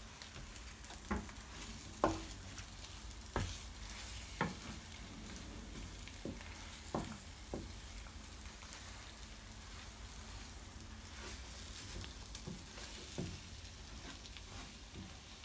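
Scrambled eggs sizzling steadily in a frying pan while a wooden spatula stirs and scrapes them, with irregular sharp knocks of the spatula against the pan.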